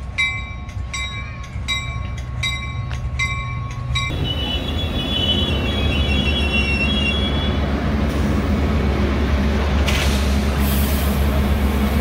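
A bell rings in regular strokes, about one or two a second, and stops about four seconds in. A Metra bilevel commuter train then rolls in close by with a low rumble, its brakes squealing for a few seconds as it slows to a stop. A sharp hiss of air starts near the end.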